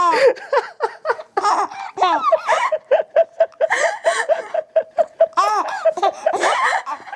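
A baby belly-laughing in repeated runs of short laugh pulses, with a long quick run of about four pulses a second through the middle.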